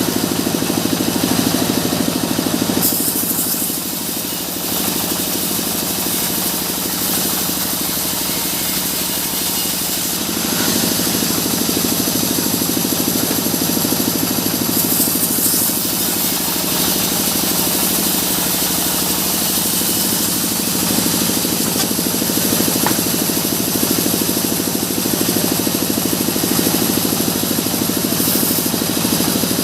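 Sawmill machinery running steadily with an engine-like hum. It is a little quieter from about four to ten seconds in, then comes back up.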